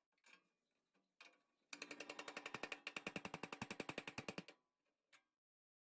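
A rapid, even run of mechanical clicks, about a dozen a second, lasting about three seconds, like a ratchet being worked; a few faint knocks come before it.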